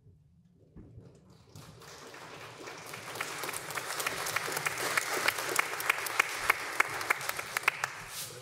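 Congregation applauding: scattered at first, swelling steadily over several seconds into full applause, with a few sharp claps close by standing out at about three a second.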